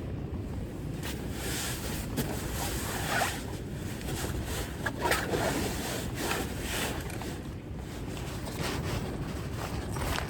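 A rectangular tarp flapping and snapping in strong wind, with irregular sharp flaps every second or so over a steady rumble of wind on the microphone.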